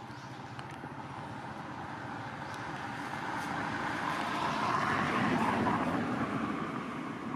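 A road vehicle passing by, its engine and tyre noise swelling to a peak about five seconds in and then fading.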